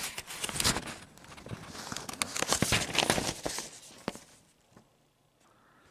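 Rustling and light clicking from handling, a quick irregular run of small noises that dies away after about four seconds.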